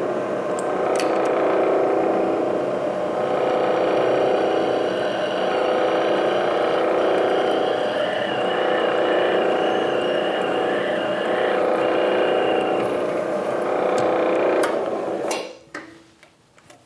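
Milling machine spindle running steadily with a drill bit in a drill chuck, drilling holes in a metal plate; the steady whine eases slightly every few seconds and cuts off about fifteen seconds in.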